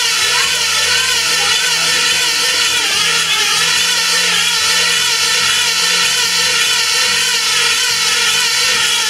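Cox Tee Dee .020 model airplane engine running at full speed in a high, continuous whine, its pitch wavering up and down over and over as the racing plane circles.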